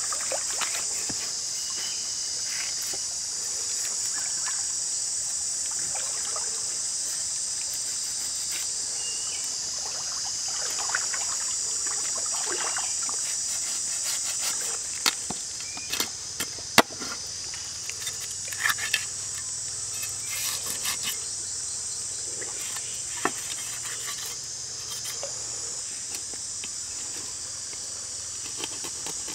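Steady high-pitched insect chorus that swells and dips slowly, with short sharp scrapes and clicks of a knife scraping and cutting a fish on a wooden board, more of them in the second half.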